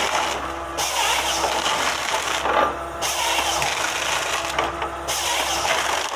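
Tracked forestry harvester with a Waratah H414 head working in pine: steady engine and hydraulic noise, with a whine that comes and goes about every two seconds as the head handles a stem.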